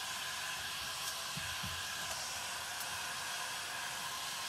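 Handheld heat gun blowing steadily, an even whoosh of air with a faint steady whine, drying freshly brushed paint.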